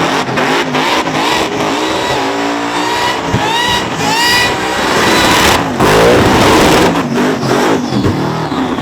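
Supercharged one-tonner engine revving hard during a burnout, its pitch rising and falling several times, with a high supercharger whine over a steady rush of noise.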